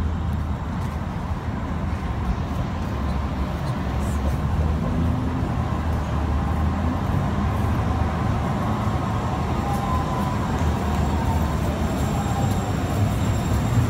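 TriMet MAX light-rail train running in and drawing up at a street-level stop, a steady low rumble over street noise. A faint whine rises and falls about two-thirds of the way through.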